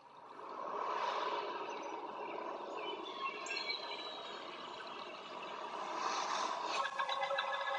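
Samsung Galaxy Note9's stereo speakers playing back a demo clip: a wash of ambient sound that swells in over the first second, with short chirping tones on top.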